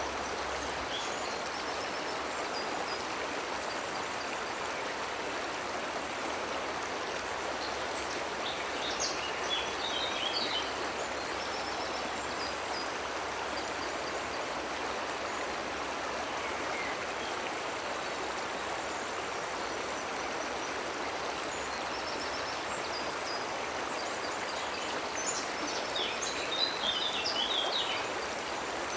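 Steady rush of a cascading waterfall. Birds chirp briefly about nine seconds in and again near the end.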